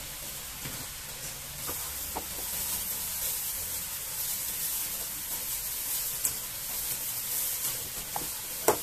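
Steady sizzling hiss of a wok cooking on the stove, with soft rustles and a few light knocks as a plastic-gloved hand breaks up cooked rice in an aluminium pot; one sharper knock near the end.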